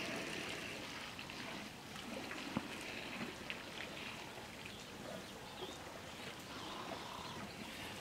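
Water splashing and dripping as elephants drink, with scattered small clicks and one sharp knock about two and a half seconds in.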